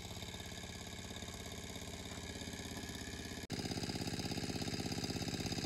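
A small engine running steadily at constant speed, with an even pulsing beat. About three and a half seconds in, the sound cuts out for an instant and comes back louder.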